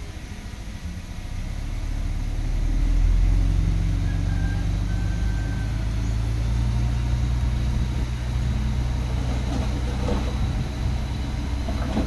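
Heavy diesel engine of earthmoving machinery running steadily, growing louder about two seconds in and then holding a steady low drone.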